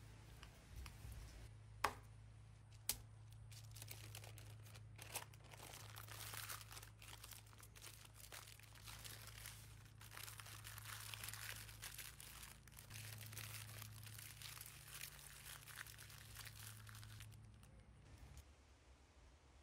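Parchment paper crinkling and rustling as it is handled and rolled up around a soft filling, in a dense run of crackles that stops shortly before the end. Two sharp clicks come about two and three seconds in, and a faint low hum runs underneath.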